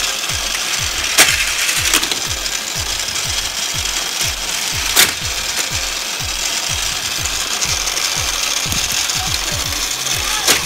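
Motorized booster of a Hot Wheels plastic track set running steadily, with a low pulsing about three times a second. A few sharp clacks of die-cast toy cars striking the plastic track stand out above it.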